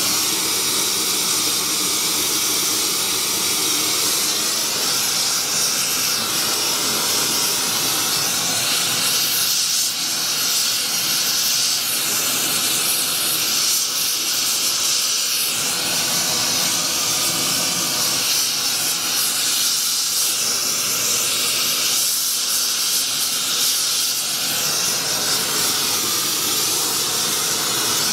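Propane gas torch burning steadily with an even hiss, heating a copper model-locomotive boiler to silver-soldering temperature.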